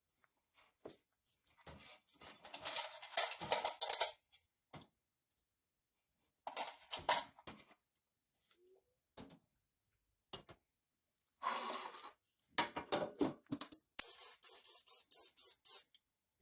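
Small outboard carburetor parts being cleaned by hand: bursts of scrubbing and light clattering, ending in a quick run of strokes, about six a second.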